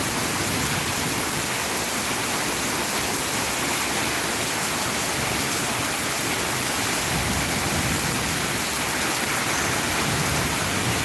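Heavy rain pouring down steadily on a street, an even, unbroken hiss.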